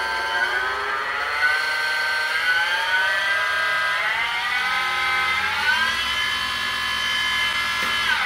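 Mini milling machine's 1 HP servo motor spindle drive running with a steady whine, its pitch stepping upward as the speed knob is turned up. It begins to wind down sharply at the very end.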